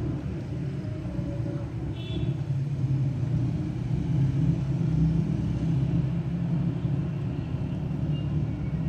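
Steady low rumble of road traffic, with a short high-pitched sound about two seconds in.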